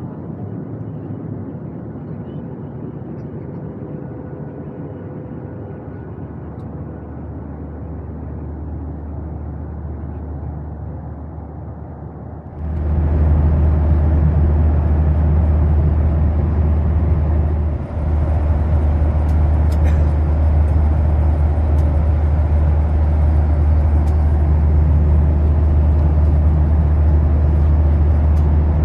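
Steady cabin noise of a Boeing 737-800 in flight: rushing airflow over a low drone from its CFM56-7B engines. About twelve seconds in it becomes much louder and fuller, heard at the window seat over the wing, with a brief dip a few seconds later.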